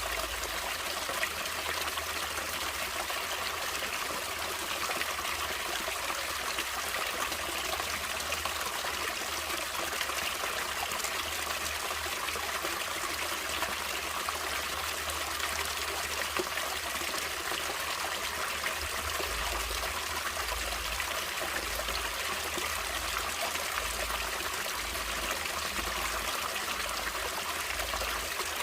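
A natural stream of running water, trickling and splashing steadily without a break.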